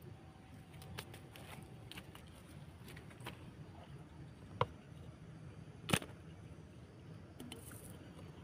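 Light clicks and knocks from a green bamboo pole being handled and set down on dirt beside a bamboo mouse trap, with two sharper knocks about four and a half and six seconds in.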